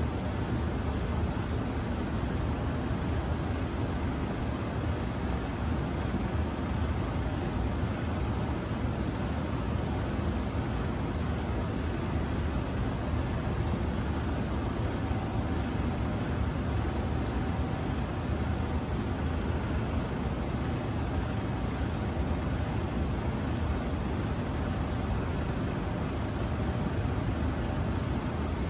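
Steady, unchanging background noise, a constant low hum with hiss, with no distinct knocks or rhythm.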